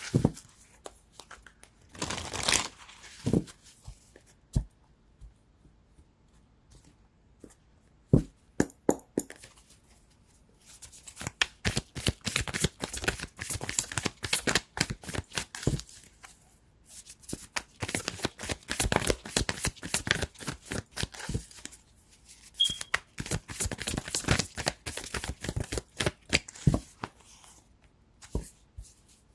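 A deck of oracle cards being shuffled by hand, in three long runs of quick papery card slaps with short pauses between them.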